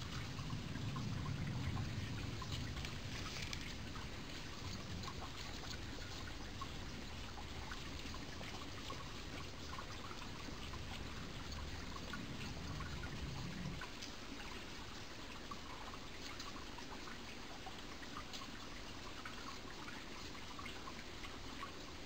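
Mountain stream running steadily, a wash of trickling water with many small drips and splashes. A low rumble underneath stops abruptly about fourteen seconds in.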